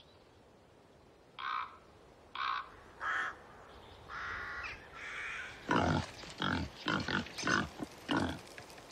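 Wild boar grunting: a quick run of short, low grunts, about two or three a second, through the second half. It is preceded by a few short, higher-pitched calls.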